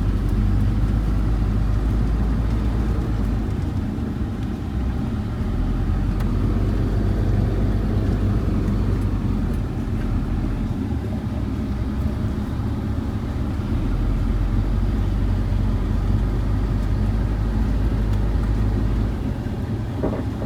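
Pickup truck driving, a steady low engine and road rumble.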